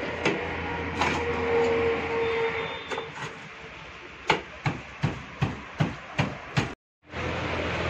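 A run of about seven sharp knocks, roughly two or three a second, like hammer taps, after a few scattered knocks earlier, over a steady background noise.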